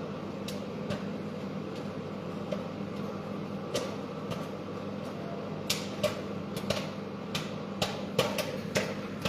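Microwave oven running with a steady hum while a bag of microwave popcorn starts popping: scattered sharp pops, a few in the first half and coming more often from about six seconds in.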